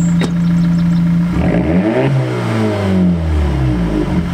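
Audi A4 B8 exhaust with the muffler and middle resonator deleted (a straight 3-inch pipe), holding a steady drone for about the first second, then revved in several blips that rise and fall in pitch.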